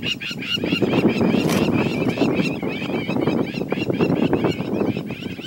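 Birds calling in quick, repeated high chirps, several a second, over a steady low rumble.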